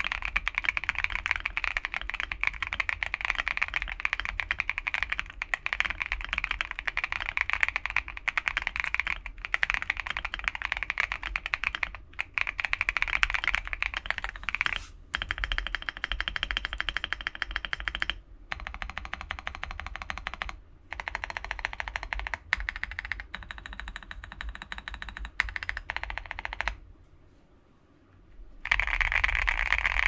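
GMK67 mechanical keyboard with Boba U4T tactile switches being typed on quickly, a fast run of key clacks. About halfway in the steady typing breaks into shorter, separate runs of keypresses, then stops for about two seconds near the end before fast typing starts again.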